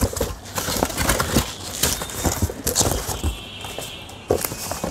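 Corrugated cardboard rustling and scraping as pieces are folded and pushed down into a cardboard shipping box as packing, with irregular crackles and knocks.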